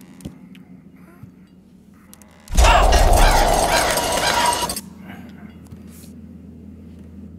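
A horse-drawn wagon's spoked wooden wheels rattling and clattering past for about two seconds, starting suddenly about two and a half seconds in and dying away, over a low steady hum.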